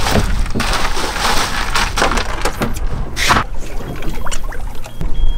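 Ice and water sloshing and clattering in a cooler as a Spanish mackerel is pushed down into the ice. The noise is busiest in the first two seconds and then thins to scattered clicks, with a short sharp noisy burst about three seconds in.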